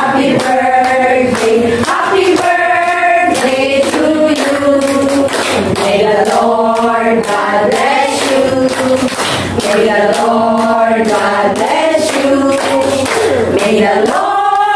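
A group of adults and children singing a birthday song together, with hand claps keeping time.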